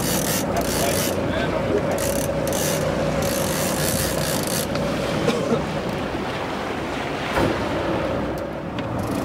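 Boat engine running with a steady hum under wind buffeting the microphone and the wash of the sea.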